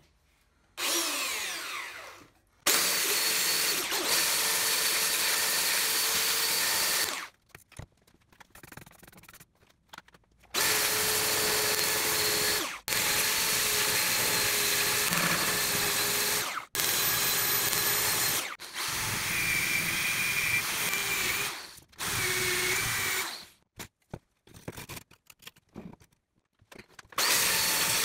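Ryobi handheld belt sander running against the rusty steel blade of a crosscut saw, grinding off the rust. It comes in several runs of a few seconds each that start and stop abruptly, with short quiet gaps between.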